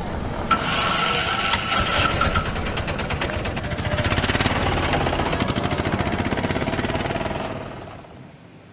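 A nearby engine running with a rapid, even pulsing that grows stronger midway and fades away near the end, with a thin high whine for about two seconds near the start.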